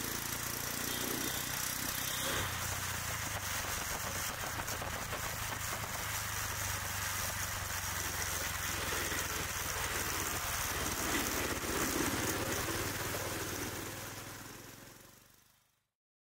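Urban street traffic, mostly motorcycles and scooters running past, with a steady engine hum. A vehicle passes louder about eleven seconds in, and the sound then fades out.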